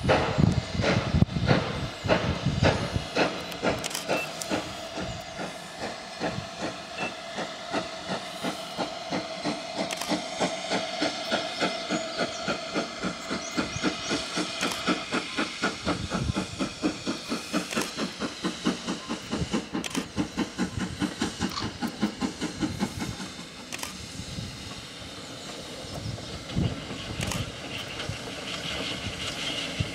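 GWR 2800 class 2-8-0 steam locomotive No. 2807 pulling away with its train: a run of exhaust beats that quicken as it gathers speed, over a steady hiss of steam.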